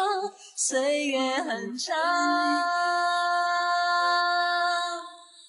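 Background song with a woman singing: a short sung phrase, then one long held note that fades out near the end.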